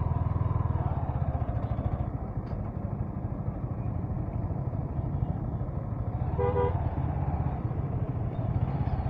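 Motorcycle engine running steadily while riding, with a single short horn toot about six and a half seconds in.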